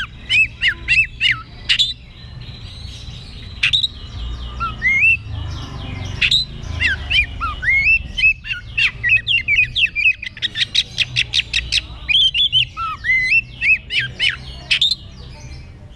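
Oriental magpie-robin singing loudly, a varied song of short rising and falling whistles and chirps, with a fast run of rapidly repeated notes in the middle.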